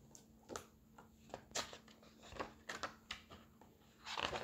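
Hardcover picture book being handled and opened: a string of faint paper rustles and soft taps as the cover and endpapers are turned, with a longer, louder rustle near the end.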